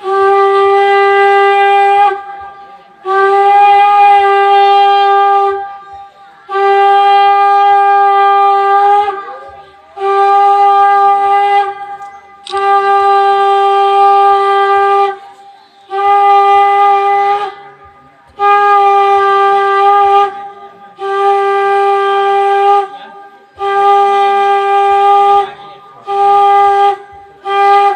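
Conch shell trumpet blown in a series of about eleven long blasts, each held at one steady pitch for two to three seconds, with short breaks between them.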